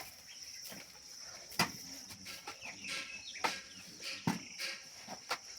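Crickets trilling steadily and high-pitched, with a few sharp knocks or taps scattered through, about a second and a half apart.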